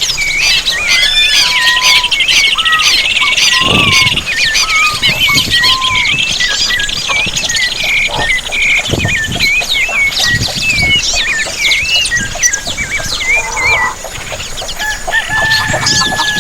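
Countryside birdsong: many small birds chirping and whistling at once, with a fast buzzing trill that stops about four seconds in. A few low thuds sound here and there.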